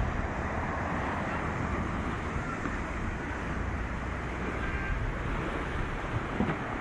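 Storm wind buffeting the microphone in a steady low rumble, over the wash of rough sea.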